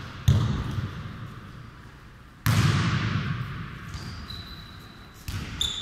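A football struck by players' feet and bouncing on a sports hall floor in futnet play: three sharp thuds, just after the start, in the middle and near the end, each ringing on in the hall's echo, the middle one the loudest.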